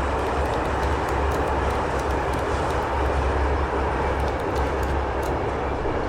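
Steady rumbling noise of a moving vehicle, with a low throb that comes and goes and faint light ticks.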